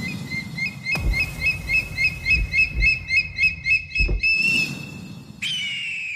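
Logo-intro sound effect: a rapid run of bird chirps, about four a second, with a few low booms beneath them. Near the end a held shimmering tone starts suddenly and fades out.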